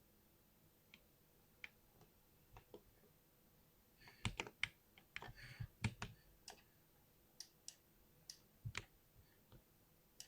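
Keystrokes on a computer keyboard: a few scattered key presses at first, a quick flurry of typing about four seconds in, then more scattered presses.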